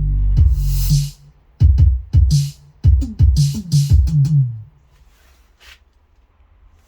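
Electronic music with a drum-machine beat and deep bass notes, played from a Philips CD614 compact disc player with its TDA1543 DAC chip. The music stops about four and a half seconds in, leaving a faint low hum.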